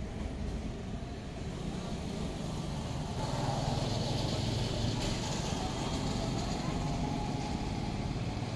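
Steady motor-vehicle noise, swelling a little about three seconds in.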